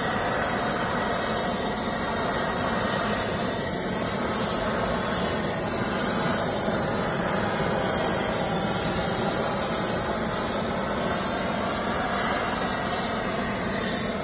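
Oxy-acetylene torch flame hissing steadily, heating a copper rod to a dull red heat to anneal it.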